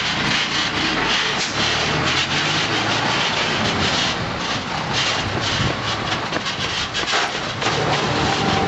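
Rotopress garbage truck running as it moves off, heard as a steady hissing rush of noise, with its engine note coming through more clearly near the end.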